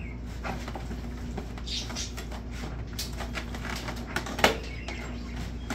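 Hands and a spoon working a garlic marinade into pork ribs in disposable aluminium foil pans: light irregular rustling, crinkling and scraping, with one sharper click about four and a half seconds in.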